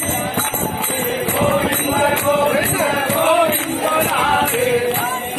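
A group singing a devotional chant while clapping hands to a steady beat, with jingling metal percussion on the beats.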